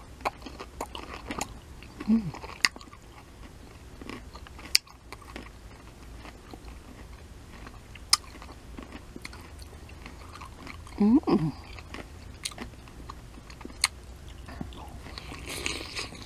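Crunching bites into a dill pickle spear and wet chewing, with sharp crunches scattered through. A short hum is heard about 2 s in and a louder one about 11 s in.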